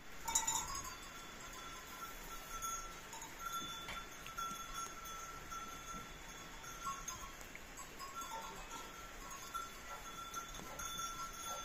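Goat kids feeding at a hay bale, with hay rustling and munching under steady high ringing tones that come and go.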